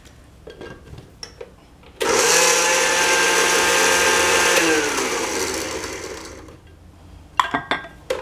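Glass-jar countertop blender switched on about two seconds in, its motor running steadily while it mixes powdered sugar into ground almonds, then switched off and winding down with falling pitch. A few light clicks and clatter near the end.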